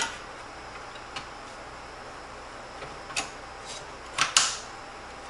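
Scattered clicks and knocks of metal and plastic as an Asus RX 580 graphics card is handled and fitted into a PC case's expansion slot. The loudest is a sharp double knock about four seconds in.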